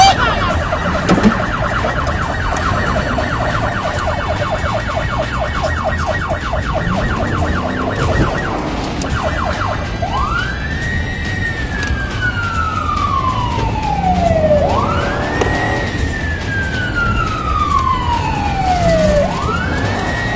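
Police car siren on a fast yelp that slows and changes about halfway to a slow wail, rising and falling about every four to five seconds, over a low rumble of the car running hard.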